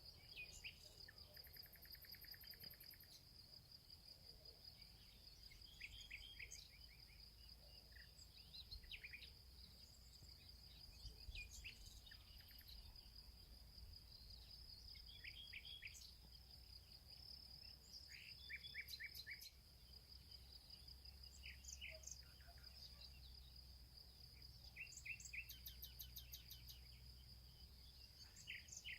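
Faint woodland birdsong: several birds give short chirps and quick trills over a continuous high, even trill that runs without a break.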